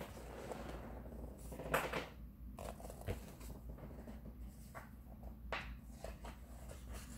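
Faint rustling of a paperback picture book being handled and its pages turned, with a few short paper swishes over a low steady room hum.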